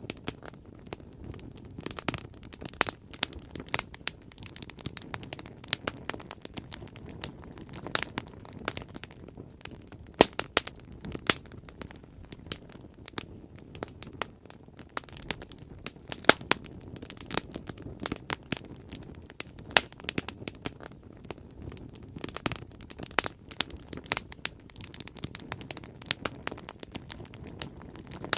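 Bonfire burning, with a low steady rumble and irregular snaps and pops of burning wood, a few of them sharper and louder.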